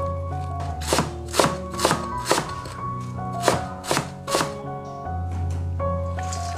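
Chinese cleaver chopping Chinese chives on a cutting board: a string of knife strikes, about two a second, that stops a little past four seconds in. Background music with held bass notes plays underneath.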